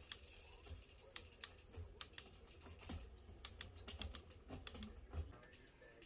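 Bicycle trigger shifter clicking through gears on a Specialized Stumpjumper during derailleur adjustment after a new gear cable and housing: irregular sharp clicks, about two or three a second.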